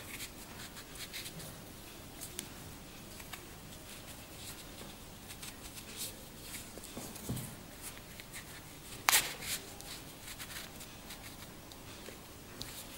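Faint rustling and rubbing of a canvas watch strap being flexed in the hands, with small clicks and taps throughout and one louder sharp click about nine seconds in.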